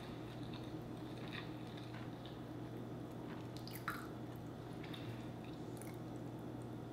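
Faint wet chewing and mouth sounds, with scattered soft clicks and squishes as a saucy chicken wing is picked from the pile and dipped into creamy sauce; one slightly louder click about four seconds in, over a low steady hum.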